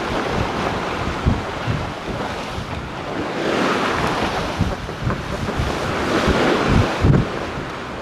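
Sailboat bow slicing through choppy sea: rushing water along the hull, with wind buffeting the microphone in low thuds, and a wave breaking into spray over the bow about halfway through.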